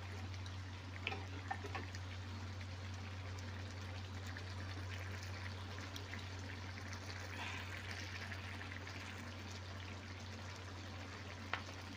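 Seafood boil of shrimp, corn and potatoes in sauce simmering and sizzling in a stainless steel pot as a wooden spoon stirs it, an even liquid hiss with a steady low hum underneath.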